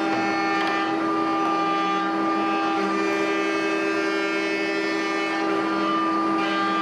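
ShopBot desktop CNC router running steadily, its spindle giving a constant, many-pitched whine.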